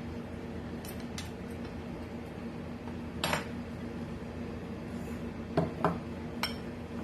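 A metal spoon clinking and tapping against a mug or dish while flour is spooned in: about six short clinks, the loudest about three seconds in and a quick pair near the end.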